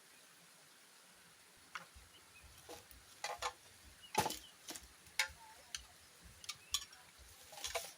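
Irregular sharp clicks and cracks, about a dozen of them, starting about two seconds in over a faint steady hiss.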